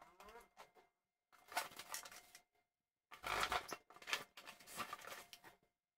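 Unpacking noise from a cardboard box and the plastic-wrapped parts of a table fan being opened and handled: irregular rustling and crinkling in short bursts, the loudest stretch starting about three seconds in.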